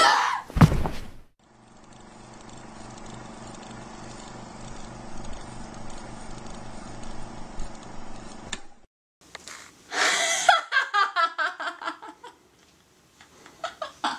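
A loud thump in the first second, then a quiet stretch of old film soundtrack with a steady low hum. From about ten seconds in, a woman's loud, cackling laugh in quick repeated bursts.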